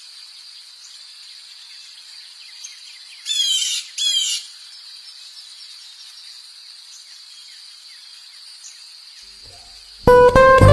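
Steady high-pitched insect drone, with a bird calling two short rapid phrases about three seconds in. Loud acoustic guitar music starts near the end.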